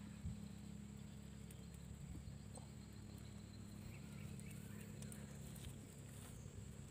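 Faint, scattered taps and scrapes of a knife on a wooden plank as a catfish is cleaned, over a low steady hum.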